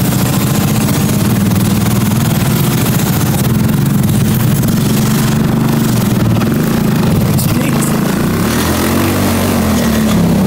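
Small gasoline engine of a mini Jeep running while it is driven, its note rising and falling near the end; the engine has only just been started and is still cold.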